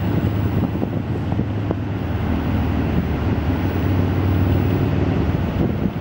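Wind buffeting the microphone in a steady low rumble, with ocean surf breaking behind it.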